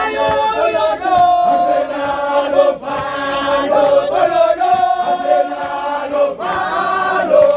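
Crowd of protesters singing a struggle song (igwijo) together in chorus, many voices holding long notes in phrases, with brief breaks between them.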